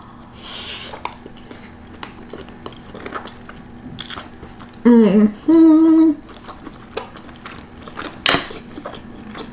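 Close-up eating sounds: chewing pasta, with light clicks of chopsticks against the dish. About five seconds in there is a short, loud vocal sound with a clear pitch.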